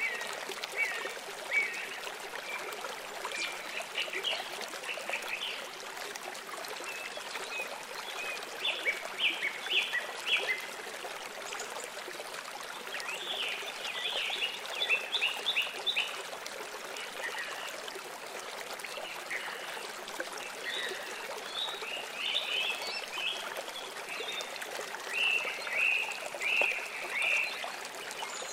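Steady sound of running water, like a flowing stream, with small birds chirping in short bursts of quick notes now and then.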